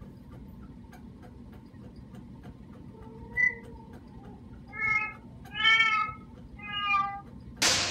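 A cat meowing, recorded through a home security camera: a faint short call about three and a half seconds in, then three louder drawn-out meows, the middle one the longest and loudest, over a steady hiss.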